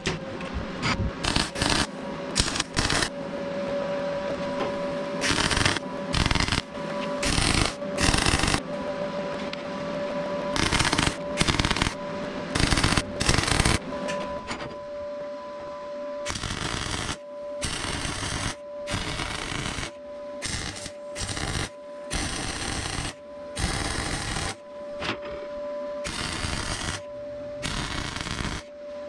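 MIG welder arc crackling and sizzling on steel in many short bursts, one every second or two, as the parts are tack- and stitch-welded. A thin steady whine goes along with much of it.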